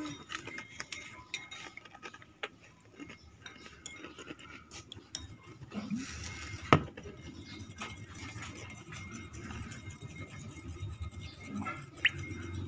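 Light clinks and taps of glass and tableware being handled, with one sharp click about seven seconds in.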